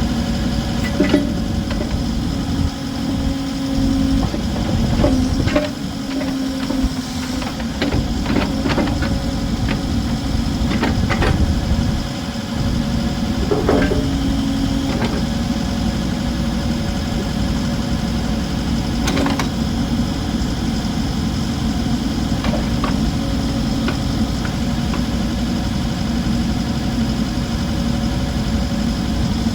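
Diesel engine of a 2017 Case 580N backhoe running steadily at idle, with scattered short clicks and knocks over it, most of them between about 8 and 15 seconds in.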